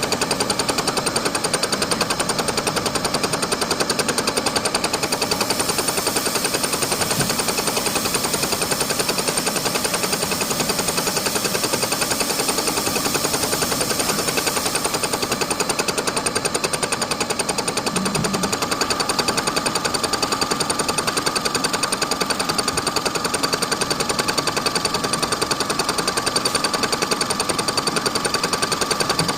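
Bridgeport milling machine taking a face cut with a shop-made fly cutter ground from a lathe tool bit. The single cutter strikes the metal once per revolution, giving a rapid, steady hammering with a ringing whine, sped up to double speed.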